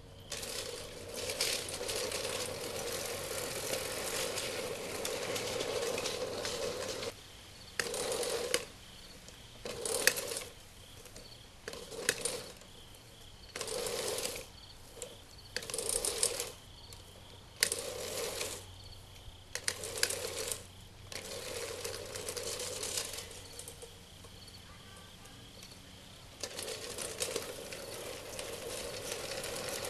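Manual push reel mower being pushed over grass, its spinning reel blades whirring and clattering against the bed knife. One long push over the first seven seconds, then a run of short pushes about every two seconds, then longer pushes again near the end.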